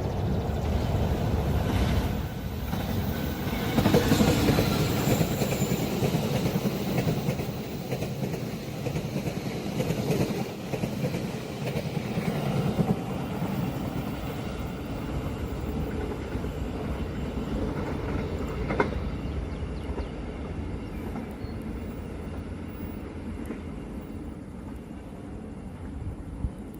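Long train passing on the rails, its wheels running over the track; loudest about four seconds in, then slowly fading as it moves away.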